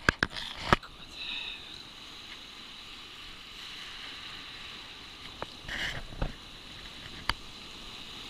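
Pebbles knocking and clicking as a hand digger works through a shingle beach: a quick cluster of sharp clicks at the start and a few single knocks later, over a steady outdoor hiss.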